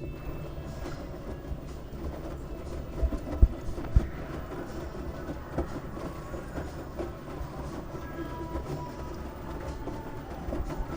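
LG washing machine running with a load of wet towels: a steady rumble from the turning drum with irregular knocks, the two sharpest thumps coming about three and a half and four seconds in.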